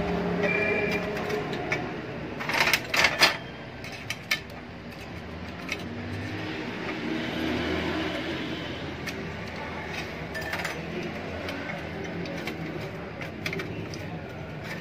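Metal parts of an opened refrigerator compressor clinking and tapping as they are handled and fitted by hand, a quick cluster of sharp clicks a few seconds in and a few single ones later. A steady low hum lies underneath.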